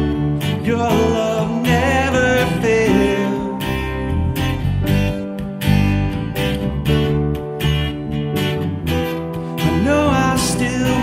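Live worship band music: a man singing over a strummed acoustic guitar, with drums keeping a steady beat.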